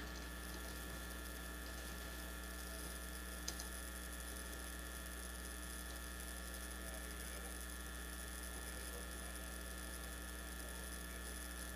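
Steady electrical mains hum over quiet room tone, with one faint click about three and a half seconds in.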